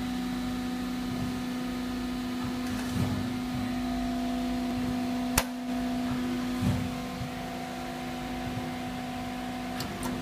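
Steady electric hum of a running machine, with a strong low drone and fainter higher tones. A single sharp click comes about five seconds in, with a few soft knocks around it.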